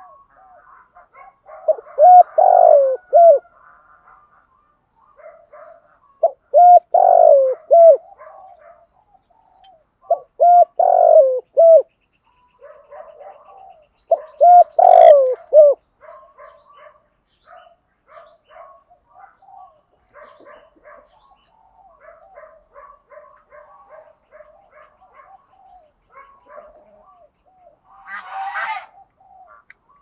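Caged decoy spotted dove cooing: four loud phrases of about three notes each, roughly four seconds apart, then a run of softer coos. A brief rustle near the end.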